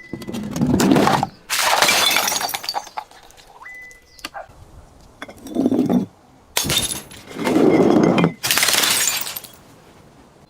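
Glass bottles being crushed and shattering in about five loud crunching bursts, with brief high clinks of glass ringing in between.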